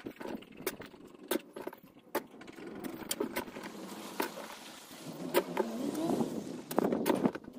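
A steel shovel scraping and chinking through stony soil, with many irregular sharp clicks of stones. A vehicle engine runs behind it and is louder in the last couple of seconds.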